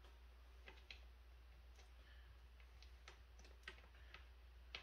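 Faint, irregular clicks and light clinks of the chair's small assembly hardware, bolts and nuts, being handled and sorted, about half a dozen over a few seconds.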